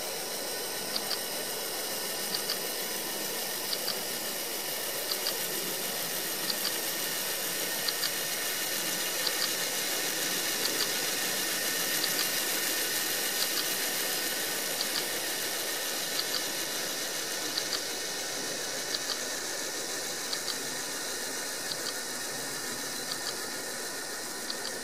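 A camera shutter clicking at an even pace, about once every second and a half, as the DSLR fires frames for a timelapse, over a steady hiss.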